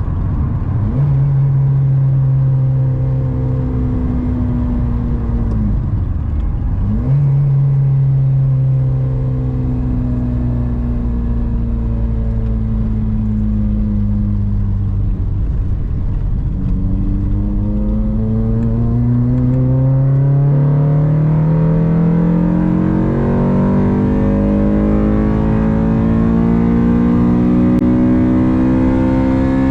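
Honda Civic Si engine running under way: it holds a steady pitch, drops and picks up again about six seconds in, then from about halfway the pitch climbs steadily as the car accelerates.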